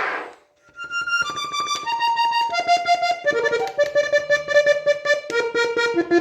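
Parrot button accordion playing a quick melody of single reedy notes, with chords joining underneath about halfway in. A short hiss fades out at the very start.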